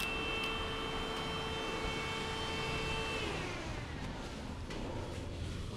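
A steady motor whine over a low rumble; about three seconds in, the whine falls in pitch and dies away as the motor spins down.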